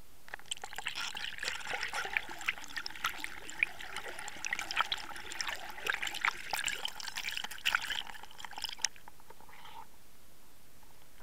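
Water sloshing and bubbling around an underwater camera as it is moved through the water, full of small crackles and pops; it stops about nine seconds in.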